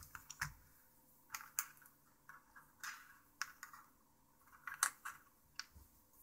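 Scattered light clicks and taps, about a dozen at irregular spacing, of small plastic phone parts and tiny screws being handled and set down on a mat.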